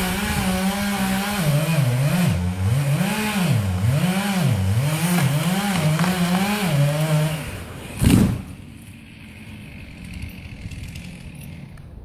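Chainsaw cutting a cottonwood tree, its engine pitch dropping and rising again and again under load, then cutting out. About half a second later a loud heavy thud as the cut section crashes to the ground.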